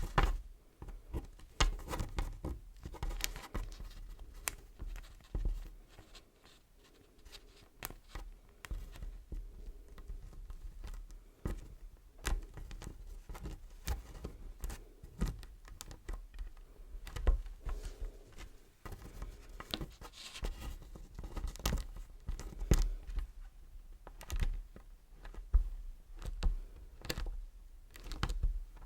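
Close-miked ASMR handling of beeswax: irregular soft taps and crackly crinkles with scattered sharper clicks, quieter for a moment around a quarter of the way in.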